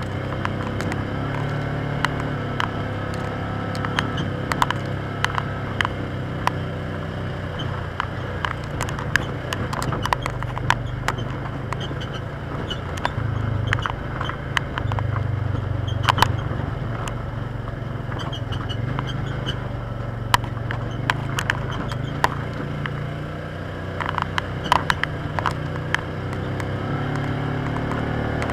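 Polaris Ranger side-by-side's engine running at a steady low speed, with many short sharp clicks and knocks scattered over it.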